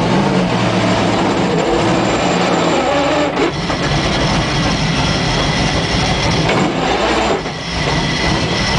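Stock Car Brasil race car's V8 engine running at low revs, heard loud from inside the stripped cockpit, a steady rumble that dips briefly about seven and a half seconds in.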